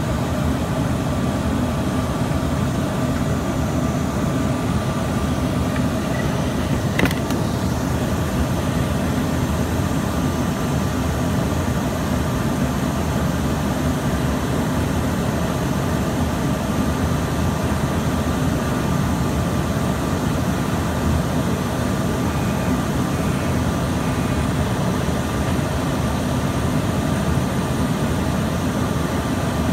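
Steady cabin noise of an Embraer ERJ-145 in its climb: the drone of its rear-mounted Rolls-Royce AE3007 turbofans and the rush of air, with a steady whine above it. One short click comes about seven seconds in.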